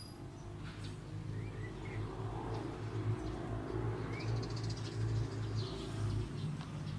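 Songbirds chirping in short, sparse rising notes over a steady low rumble that grows louder after the first second or so.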